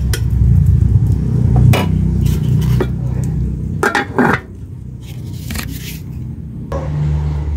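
A metal ladle knocking and scraping in a large cooking pot, then a metal lid clanking down onto the pot about four seconds in, with a short ringing. A steady low rumble runs underneath for the first half, quieter afterwards.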